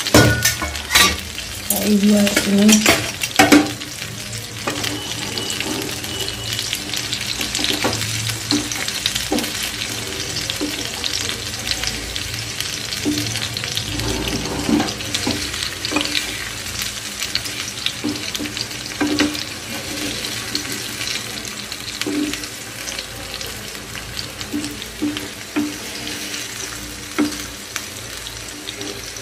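Masala-coated fish pieces frying in hot oil in a frying pan, with a steady sizzle. A few sharp clanks come in the first few seconds, and a wooden spatula scrapes and knocks against the pan now and then as the pieces are turned.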